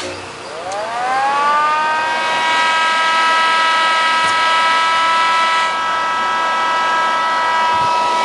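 A switch clicks, then the power amplifier's cooling fan spins up: a whine rises in pitch for about a second and a half and settles into a steady high hum.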